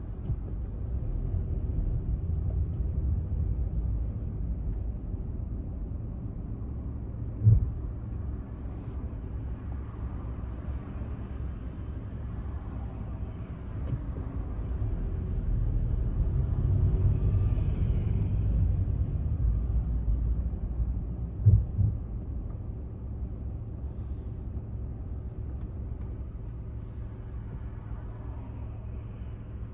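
Low, steady rumble of a car driving slowly in city traffic, heard from inside the cabin, rising and easing a couple of times. Two short, sharp thumps stand out, one about a quarter of the way in and one about two-thirds through.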